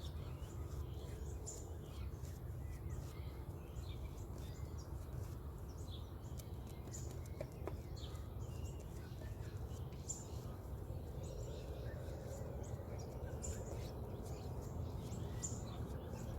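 Many small birds chirping and calling in short, scattered notes over a steady low rumble.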